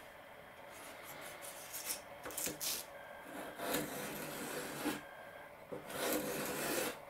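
Small razor plane shaving balsa wood: a series of scraping strokes along the trailing edge of a balsa rudder to taper it, with two longer strokes about halfway through and near the end.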